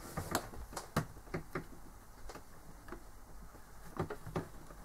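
Light, irregular clicks and taps of tweezers and small tools handled on a wooden table, about a dozen in all.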